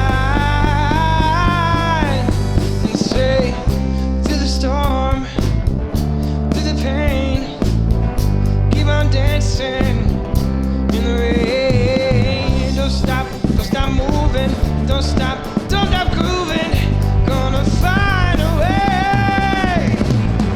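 Live rock band playing a passage without transcribed lyrics: a lead melody line bending in pitch with vibrato over heavy bass and drums.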